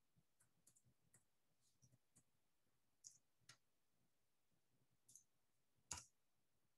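Near silence with scattered faint clicks of a computer keyboard and mouse. The loudest click comes near the end.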